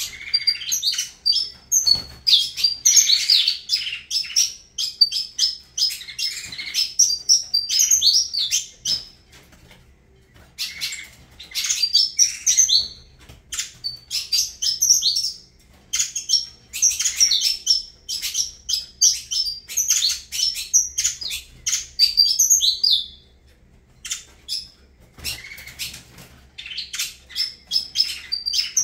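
Saffron finch (canário-da-terra) singing: phrases of rapid high chirps and trills, broken by short pauses of a second or two.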